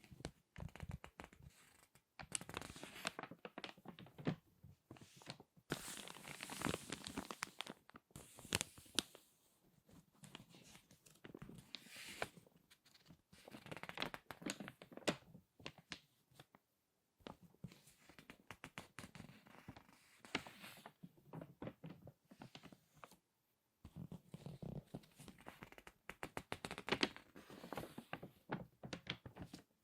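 Glossy magazine pages being squeezed and turned by hand, crinkling and crackling in irregular bursts with short pauses between them.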